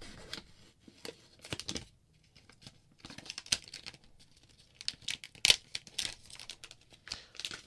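Thin clear plastic protective film crinkling and crackling as it is peeled and pulled off a charging stand, in scattered short bursts, with one sharp click about five and a half seconds in.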